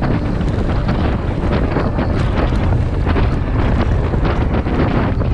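Heavy wind buffeting the microphone during a mountain bike ride, with many short clicks and rattles from the bike running over rough trail.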